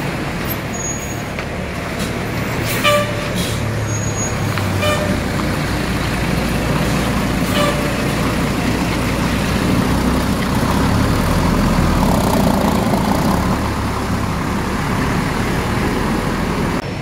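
Intercity coach's diesel engine running as the bus pulls out and passes close by. Its low rumble builds toward the middle and then eases as it moves away. A few brief high beeps sound in the first half.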